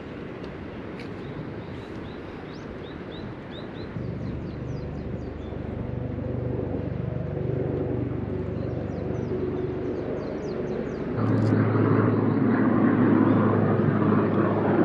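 A motor engine running with a low hum that comes in about four seconds in and grows louder, then steps up sharply about eleven seconds in, as it draws nearer. Small birds chirp over it.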